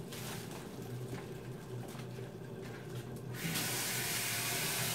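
Kitchen sink tap turned on about three and a half seconds in, water running steadily into the sink. Before that there is only faint, low kitchen noise.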